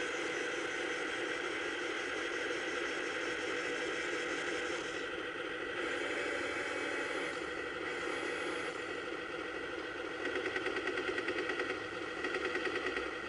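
Electric RC model tank's onboard sound unit playing a simulated tank engine running steadily through its small speaker. From about ten seconds in, a rapid pulsing sound joins it for a couple of seconds, then again briefly near the end.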